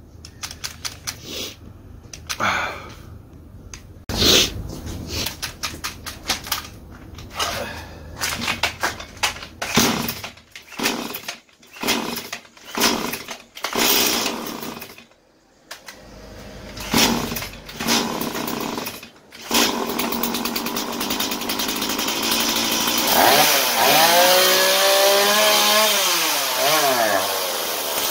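STIHL MS180C two-stroke chainsaw being pull-started with several separate pulls of the starter cord. About twenty seconds in the engine catches and keeps running, with the throttle revved up and back down a few times. This is a test run after a carburetor repair for an engine that started but soon died.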